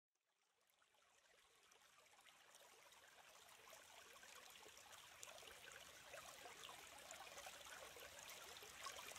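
Mountain stream rushing and splashing over rocks, fading in from silence and growing gradually louder.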